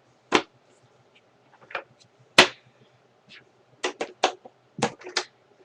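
Sharp clicks and knocks of hard plastic vacuum-cleaner parts and a screw being handled during reassembly, about eight of them: the loudest about two and a half seconds in, several in quick succession near the end.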